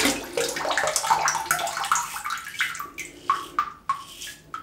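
Double-edge safety razor with a Dorco Titan blade scraping lathered stubble on the neck in a quick run of short strokes, about three a second, each with a brief ring.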